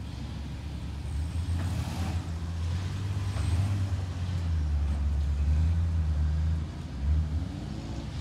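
Off-road buggy engine revving under load in loose dirt. It gets louder and stays at its loudest for several seconds, then backs off, with one short blip of throttle near the end.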